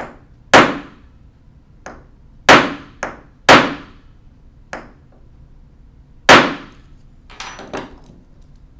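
Ball-peen hammer striking a steel pin punch to drive a stuck pin out of a 1920s Monroe mechanical calculator part held in a metal jig: about eight sharp metallic blows, irregularly spaced, some heavy and some light. These are test hits to see whether the pin is loose enough, and it does not seem to give. A few lighter knocks follow near the end.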